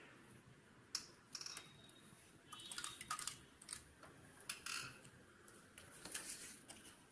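Faint, irregular clicks and short rustles of fabric and parts being handled at an industrial sewing machine, with no steady stitching run.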